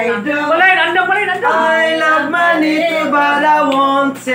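A man singing, holding some notes long.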